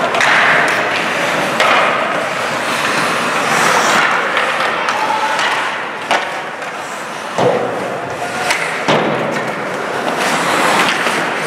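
Ice hockey skates scraping and carving on rink ice, with several sharp knocks from sticks, puck and boards.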